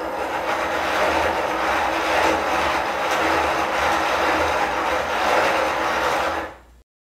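Hand-cranked 3D-printed plastic gear train and cams running fast, a steady dense whirring rattle of plastic gear teeth meshing. It dies away near the end as the cranking stops.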